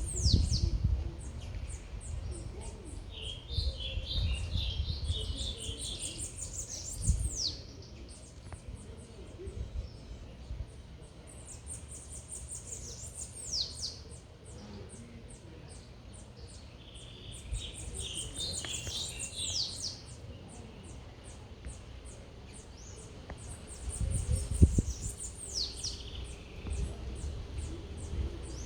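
A songbird repeating one song phrase about every six seconds: a quick, high run of notes that ends in downward-sweeping whistles. Lower warbling notes come between the phrases, over a low rumble of city noise.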